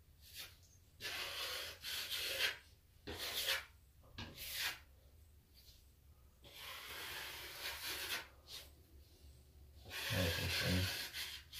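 Metal plastering knife scraping joint compound along a plasterboard corner joint, in about five separate strokes, some short and some about two seconds long.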